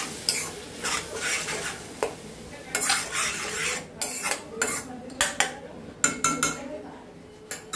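Steel slotted spoon stirring and scraping tomato purée in a stainless steel kadai as it sautés in oil, with a light sizzle underneath. Several sharp metal clinks of spoon against pan come in the second half.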